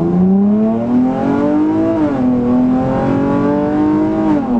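2018 Dodge Challenger SXT Plus's 3.6-litre V6, fitted with a cold air intake, revving up under hard acceleration. The pitch drops twice as the automatic upshifts, about two seconds in and again near the end.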